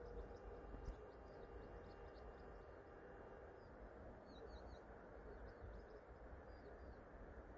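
Faint, high bird chirps, scattered, with a quick run of three about four seconds in, over a low steady background noise of open air.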